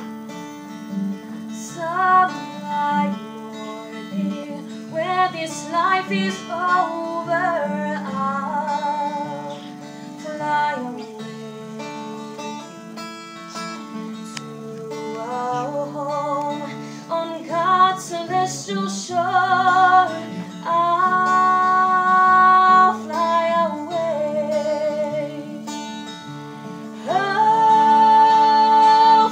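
Background music: acoustic guitar playing under a melody line with long held notes, in a country style.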